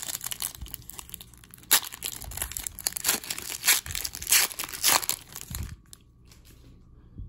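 Foil wrapper of a hockey card pack being torn open and crinkled by hand, a dense crackling that dies away about six seconds in.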